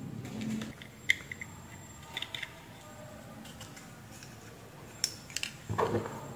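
A few faint, scattered clicks and taps of small flashlight parts being handled as the push-button switch is fitted back into the tail cap. A brief murmur of voice comes near the end.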